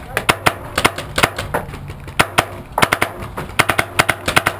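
Paintball markers firing: sharp cracks, several a second in irregular bursts, during a firefight.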